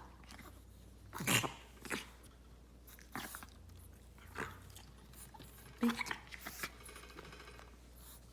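A dog coughing: several short coughs spread out, the loudest about a second in and a quick run of them near six seconds.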